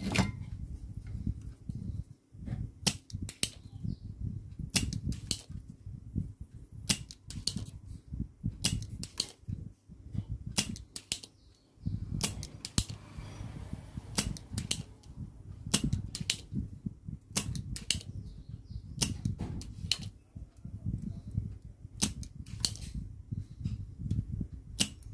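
Soldering iron working the joints of a CRT socket circuit board: sharp, irregular clicks and ticks as the tip touches the pins, over a low steady rumble, with a brief hiss about halfway through.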